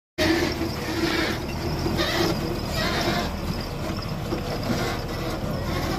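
Heavy cargo truck's diesel engine running steadily as the truck drives slowly past on a dirt road.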